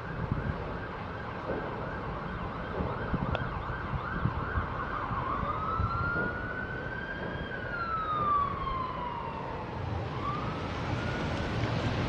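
Emergency vehicle siren. It warbles fast in a yelp for about the first five seconds, then switches to a slow wail that rises, falls and starts to rise again near the end, over a low rumble.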